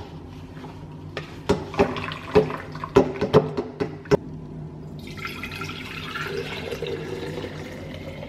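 Chufamix vegan milker's press being worked down into the nut pulp, a run of sharp clicks and knocks as extra milk is squeezed out. About five seconds in this gives way to homemade nut milk pouring steadily into a glass jar.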